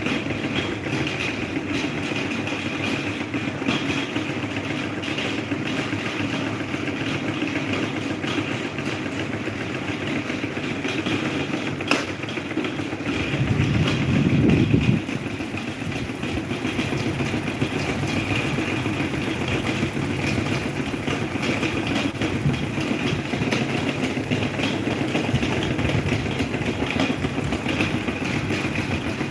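Electric table fan running with a steady whir. There is a single click about twelve seconds in, and a louder low rumble that swells for about two seconds shortly after.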